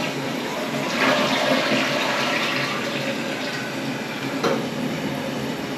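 Toilet flushing, water rushing freely down the drain and the bowl refilling now the clog in the trap has been cleared. It gets louder about a second in, and there is a brief click about four and a half seconds in.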